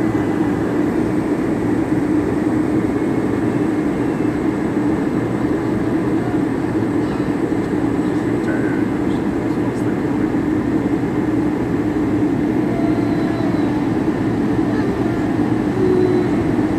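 Steady cabin noise of a passenger airliner in flight: engine and airflow noise heard from inside the cabin, an even low hum that holds unchanged throughout.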